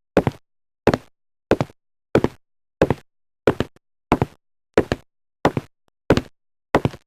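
A steady series of sharp knocks, about three every two seconds, each a short hit that dies away quickly.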